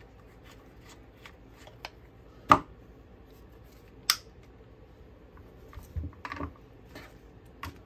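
Plastic clicks and knocks from a DJI Osmo Mobile SE folding gimbal being handled: a sharp click about two and a half seconds in, a higher snap about four seconds in as the arm is folded, and a few soft knocks near six seconds as it is set down.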